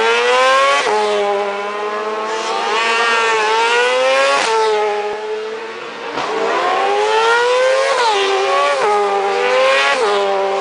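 Racing sidecar outfits revving hard as they pass one after another. The engine pitch climbs and then drops sharply several times, and at moments two engines are heard together.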